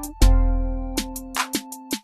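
Background music with a slow beat: a deep bass note comes in about a quarter second in, with sharp drum hits and held instrumental notes over it.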